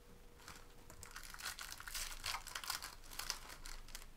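Foil trading-card pack wrappers crinkling as they are handled: a dense run of sharp crackles starting about half a second in and dying away near the end.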